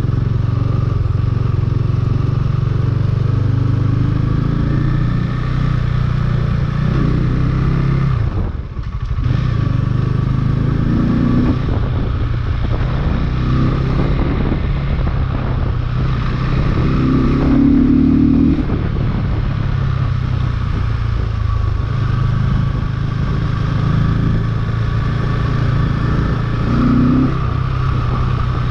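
Sport motorcycle engine running while riding in traffic. The engine note climbs a few times as the bike accelerates and drops away briefly about a third of the way in.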